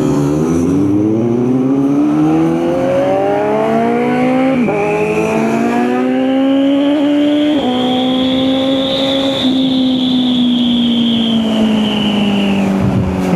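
Kawasaki Z900's inline-four engine accelerating hard, its pitch climbing and then dropping at two upshifts about four and a half and seven and a half seconds in. It then runs at steady revs and eases off near the end.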